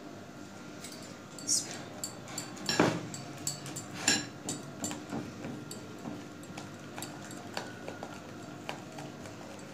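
Silicone spatula stirring a thick chocolate-and-cream mixture in a glass bowl, knocking and scraping against the glass in a run of irregular taps, a few louder ones in the first half.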